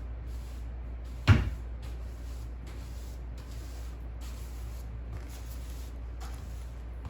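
A cupboard door shut with one sharp knock about a second in, over a steady low hum and soft, intermittent rustling.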